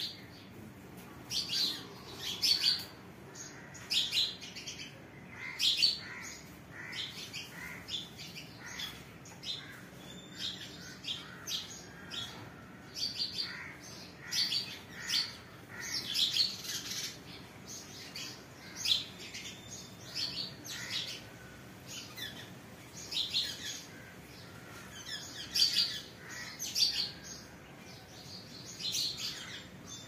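Songbirds chirping: many short, high chirps and quick little calls that come again and again at irregular intervals, over a faint steady background.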